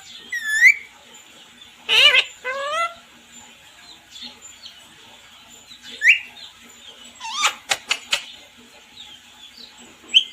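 Parrot calling: a series of separate wavering, whistled and screechy calls, a short rising squawk about six seconds in, and a quick run of sharp chirps around eight seconds.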